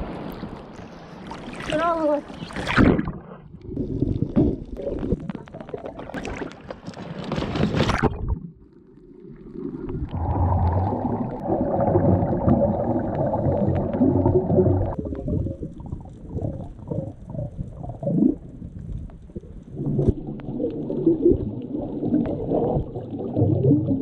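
Sea water splashing and slapping at the waterline as scuba divers go in off an inflatable dinghy. About eight seconds in, the sound turns muffled and underwater: the low gurgling of the divers' exhaled regulator bubbles as they descend.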